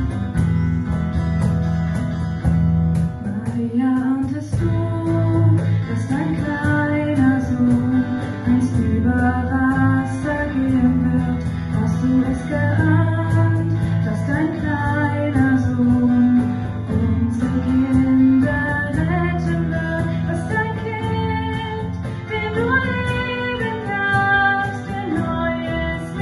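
Music: a song with guitar and bass accompaniment, and a female voice singing the melody from about four seconds in.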